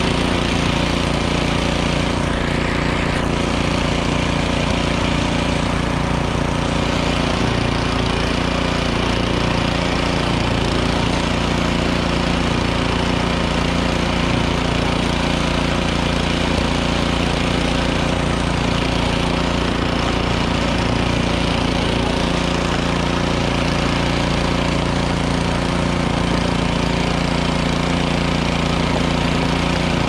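Gas-powered two-stage snowblower engine running steadily under load while its auger and chute throw deep fresh snow.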